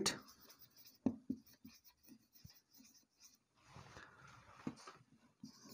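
Marker pen writing on a whiteboard: faint taps of the tip against the board about a second in, then a run of rubbing, squeaky strokes near the end.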